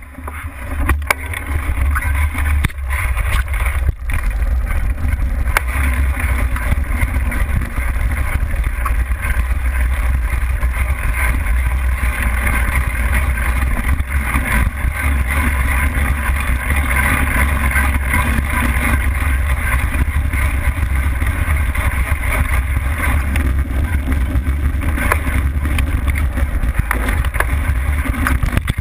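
Mountain bike ridden along a dirt trail, heard through a handlebar-mounted action camera: a steady deep rumble of wind and vibration on the camera over the rolling noise of the tyres on dirt, with small rattles and knocks from the bike.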